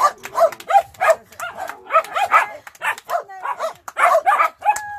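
Several Hungarian Puli dogs barking over and over, their barks overlapping, with hands clapping among them.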